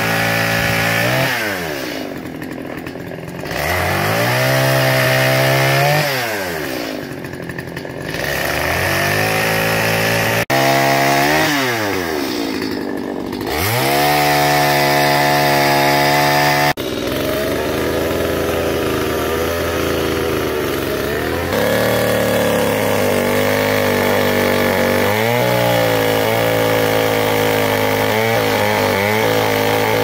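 Small two-stroke chainsaw cutting dry, dead birch logs. The engine revs to full throttle and falls back to idle three times in the first half, then runs under load through long cuts, its pitch wavering as the chain bites into the wood.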